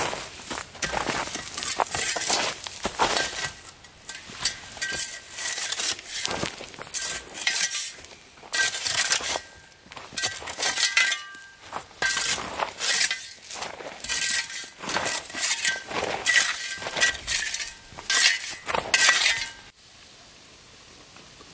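Steel pick striking and prying at rocks in stony ground to dig out an embedded rock: repeated sharp metal-on-stone clinks, one or two a second, with a short ringing note after the harder blows. The strikes stop abruptly near the end.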